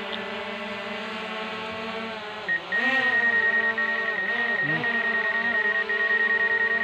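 Small quadcopter drone's propellers whining steadily in flight. About two and a half seconds in, the pitch dips and rises twice as it manoeuvres, and a high, steady, rapidly pulsing electronic tone joins in.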